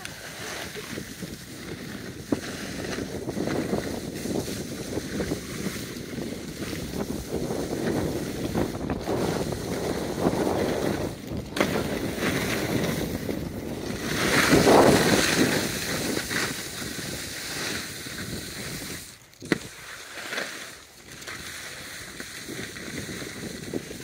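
Skis sliding over groomed snow while skiing downhill, mixed with wind rushing over the phone's microphone. The rush swells loudest about two-thirds of the way through, then drops away briefly.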